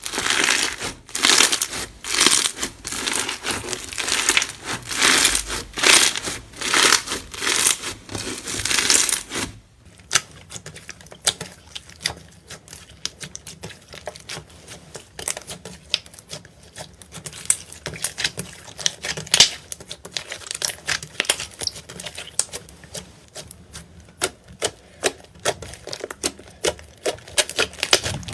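Slime being squeezed and pressed by hand, crackling in rhythmic pushes. About ten seconds in it changes to a quieter run of quick sharp clicks and pops.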